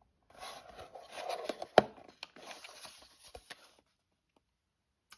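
A cardboard knife box and a folding knife being handled and turned over: light rustling and scraping with small clicks, and one sharp click about two seconds in. The handling stops about a second before the end.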